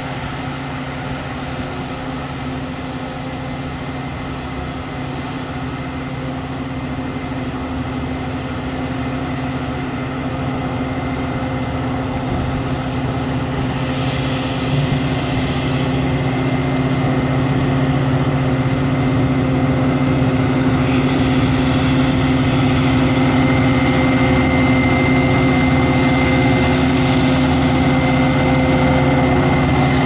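EMD F40PH diesel-electric locomotive approaching with a steady, even-pitched diesel drone that grows gradually louder as it nears, with rail and wheel noise building toward the end.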